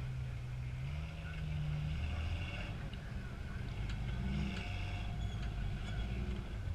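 Lifted two-door Jeep Cherokee XJ rock crawler's engine running under throttle as it crawls over rocks, its pitch stepping up about a second in and rising again near the middle, with a few sharp clicks.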